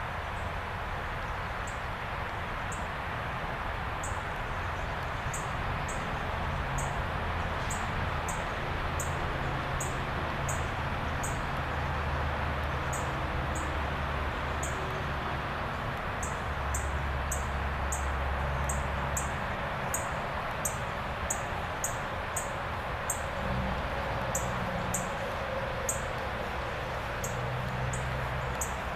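Small bird chirping in short, high notes, repeated irregularly many times, over a steady outdoor hiss and low rumble.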